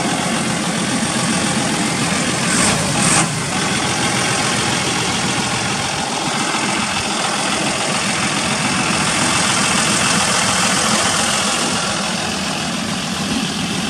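John Deere 7220 tractor's six-cylinder diesel engine idling steadily, heard close to the engine bay. Two short bumps sound about three seconds in.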